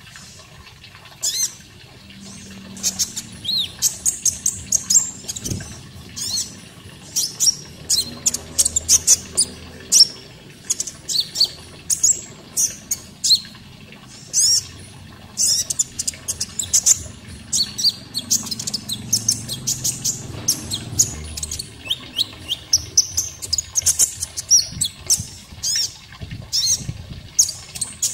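Konin songbird calling in rapid clusters of sharp, high chirps and short sliding whistles, over a faint, steady sound of running water.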